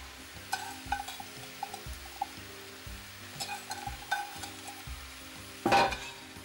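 Diced eggplant, leek and bell pepper frying gently in oil in a stainless steel pan: a soft sizzle with scattered small crackles, and one louder sharp sound near the end. Soft background music underneath.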